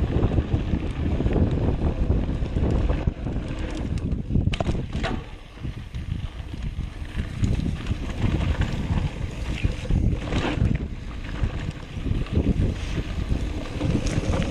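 Wind buffeting the microphone of a camera on a mountain bike riding downhill, over a steady low rumble of tyres on a dirt trail. A few sharp knocks stand out, about four and a half and ten seconds in.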